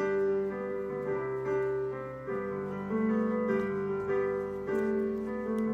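Background piano music: soft notes played at an even, unhurried pace.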